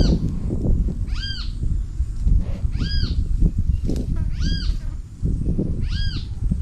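An animal calling: a short pitched call that rises and falls, repeated five times about every one and a half seconds, over a low rumbling noise.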